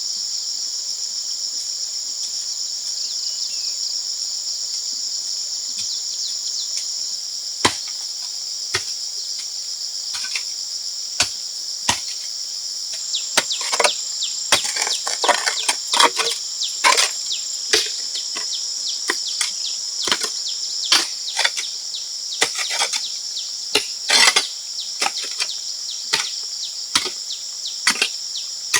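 Steady high-pitched insect chorus throughout. From about eight seconds in it is joined by sharp, irregular knocks of wood being struck, which come quicker and more often in the second half.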